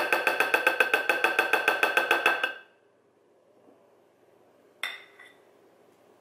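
A spatula is tapped rapidly against the rim of a glass mixing bowl, about eight or nine taps a second with a ringing note from the glass, to knock off a thick cookie-crumb pudding mixture. The tapping stops after about two and a half seconds. A single soft knock comes near the end.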